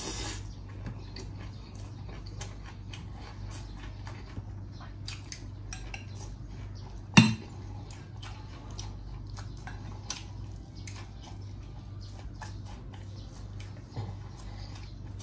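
Utensils clicking and clinking against dishes, with one sharp, loud knock about seven seconds in, over a steady low hum.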